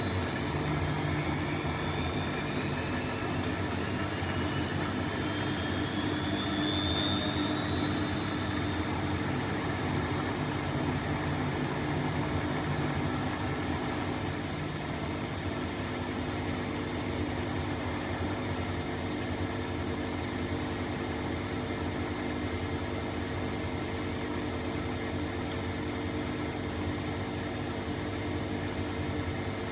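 Bosch Exxcel 1400 washing machine spinning up: the motor's whine rises in pitch for about nine seconds, then holds steady as the drum spins at speed.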